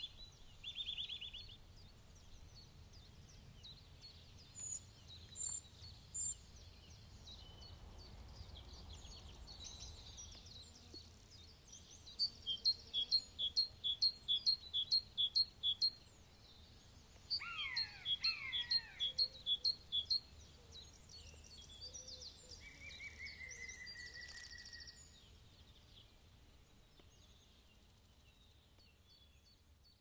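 Several woodland birds singing over a faint steady low rumble. Midway, a great tit repeats its two-note song for a few seconds. The sound fades out near the end.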